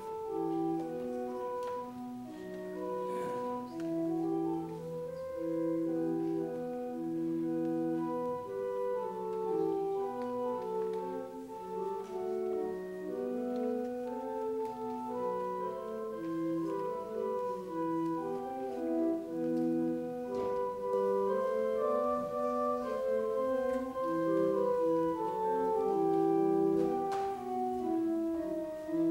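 Church organ playing slow music in sustained, held chords that change every second or so.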